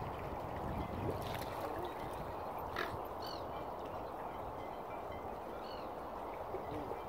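Steady outdoor wind-and-water noise on open water, with a few short, high bird calls about three seconds in and again near six seconds, and one sharp click just before the first calls.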